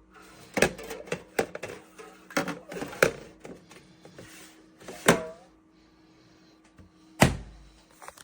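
Irregular clicks and knocks of things being handled, with one loud thunk about seven seconds in, over a faint steady hum.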